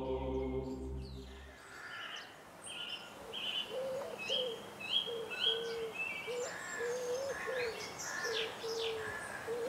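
A chant with a held drone fades out in the first second and a half. Then birdsong takes over: short, repeated high chirps above a run of low cooing notes.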